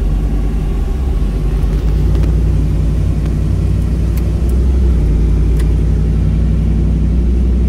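Ford SVT Lightning's supercharged 5.4-litre V8 heard from inside the cab while driving: a steady, deep rumble that shifts slightly in pitch about five seconds in.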